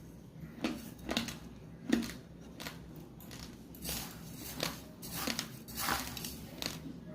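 Uncooked rice grains being bitten and chewed close to the microphone: a string of sharp, uneven crunches, about one a second.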